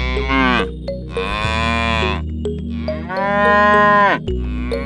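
Cattle mooing: several long moos one after another, each dropping in pitch at its end, over a steady low hum.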